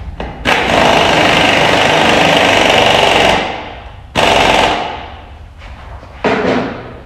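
Pneumatic impact wrench hammering on the hub of a Camso ATV track system: one long burst of about three seconds, then two short bursts.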